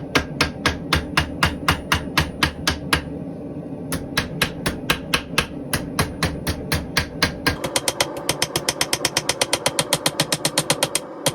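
Small round-headed hammer striking hot stainless steel bar stock in even blows, doming the bowl of a bar spoon: about four blows a second, a brief pause around three seconds in, then a quicker run of about six a second over the last third.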